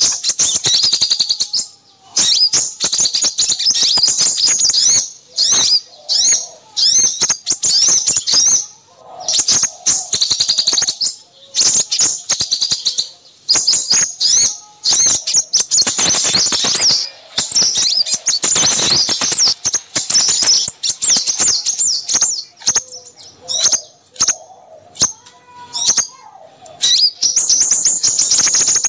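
A dense chorus of small songbirds chirping and trilling rapidly, high-pitched and almost without pause, with brief breaks here and there: a bird-trapping lure recording of noisy small birds used to draw in crimson sunbirds.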